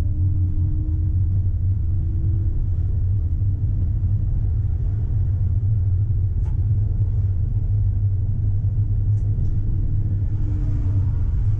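Tram running along the track, heard from the driver's cab: a steady low rumble, with a faint motor whine that rises slightly near the start and comes back near the end, and a couple of light clicks.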